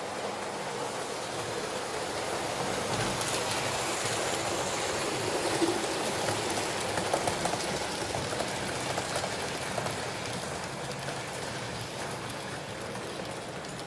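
HO-scale model train running along the track: a steady rolling hiss that swells and then eases off, with a few sharp clicks along the way.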